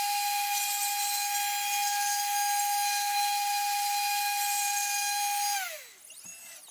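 Genmitsu 3020 PRO MAX CNC router's spindle running with a steady high-pitched whine over a hiss as a 1/8 inch end mill makes a roughing pass in MDF. Near the end the whine falls in pitch and dies away as the spindle spins down.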